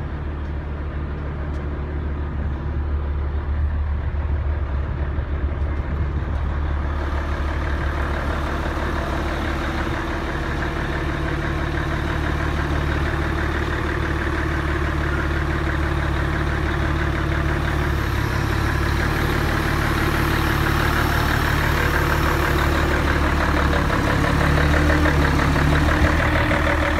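Large diesel truck engine idling steadily, a little louder near the end.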